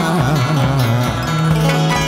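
Chầu văn ritual music: a low melodic line slides down and up, then settles on a held note about one and a half seconds in, over plucked strings.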